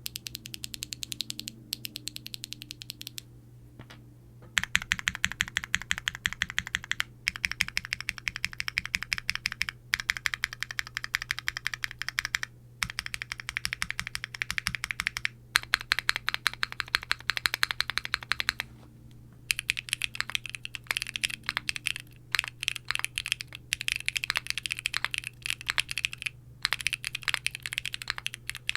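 Fast typing on a gasket-mounted 60% aluminium keyboard (Qwertykeys Neo60 Core with aluminium plate, no foam) fitted with WS BigLucky tactile switches and GMK doubleshot ABS keycaps. The keystrokes come in quick, bright runs that stop briefly every few seconds.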